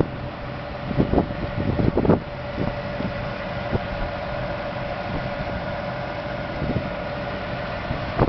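Case IH 350 Rowtrac tractor's diesel engine running steadily with a held mechanical hum. A few short low thumps come in the first two seconds or so.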